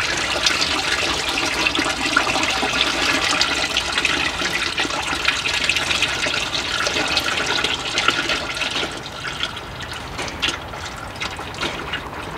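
Engine oil pouring out of a tractor's engine and splashing into a catch container. The flow is steady at first and eases off about nine seconds in.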